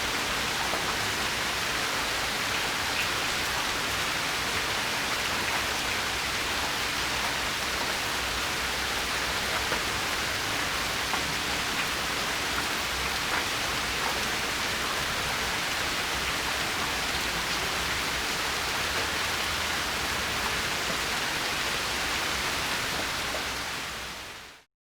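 Steady rain falling, an even hiss with faint scattered drop ticks, fading out to silence at the very end.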